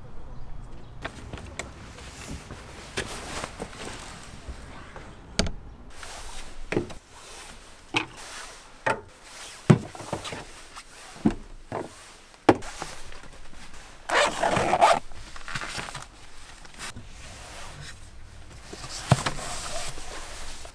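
A zipper being pulled, amid scattered sharp clicks, knocks and rustling of things being handled. The longest, loudest rasp comes about fourteen seconds in.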